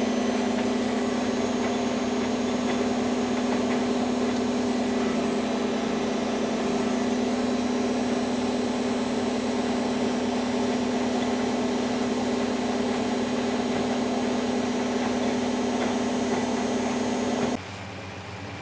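Miele Hydromatic W734 washing machine running steadily with a strong motor hum, which cuts off sharply about a second before the end, leaving a quieter steady whir.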